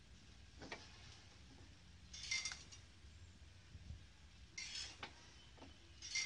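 Faint metallic clicks and short rattles from a tuktuk's hand controller lever as it is worked by hand: one click early on, then three brief rattles a couple of seconds apart.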